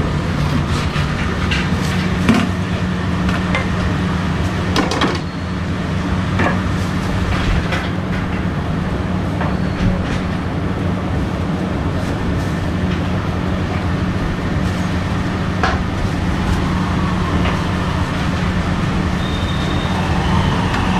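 Steady low rumble with a hum under it, crossed by scattered clinks and knocks of steel idli-steamer trays and a steel plate being handled.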